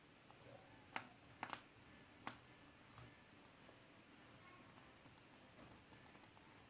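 Near silence broken by a few light clicks or taps, about four of them in the first two and a half seconds, then only faint ticks.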